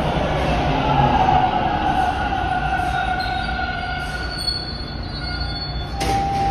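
TTC Bombardier T1 subway train slowing through the station, its whine of several tones gradually falling in pitch over wheel squeal. A sudden click comes about six seconds in, followed by a steady tone.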